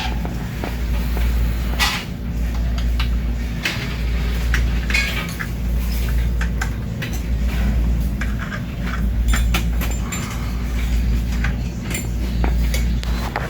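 Scattered clicks, knocks and metallic clinks of tools and bike parts being handled, over a steady low hum.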